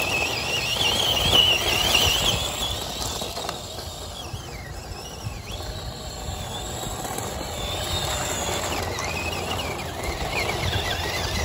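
Tamiya Hi-Lux Monster Racer RC truck driving over loose gravel. Its electric motor and gears whine, rising and falling with the throttle, over the crunch of the tyres on the stones. The whine is strongest in the first couple of seconds.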